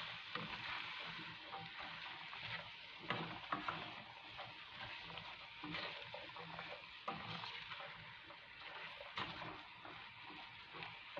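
Chickpeas and chopped vegetables frying in a non-stick pan with a faint steady sizzle. A plastic spatula stirs through them, scraping and tapping against the pan now and then as the seasoning is mixed in.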